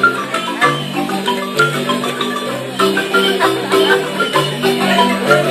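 Music with many quick, struck, pitched notes over a repeating bass line.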